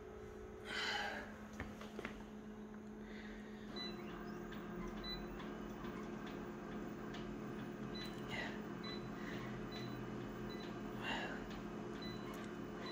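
Konica Minolta C227 colour copier humming steadily at idle; the hum grows fuller about four seconds in. A few short rustles and soft clicks come on top, the loudest about a second in.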